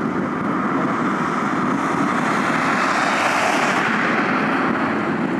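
Jet aircraft engine noise, a steady rushing roar that swells and turns hissier about two to three seconds in, then eases.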